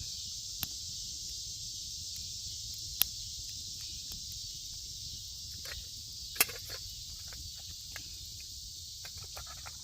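A steady high insect chorus, with a small wood campfire crackling underneath and two sharp pops from the fire about three seconds and six and a half seconds in.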